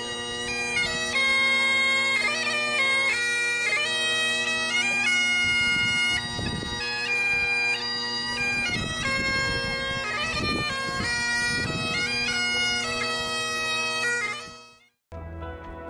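Bagpipe music: steady drones held under a changing chanter melody, fading out near the end, followed by a short gap before other music begins.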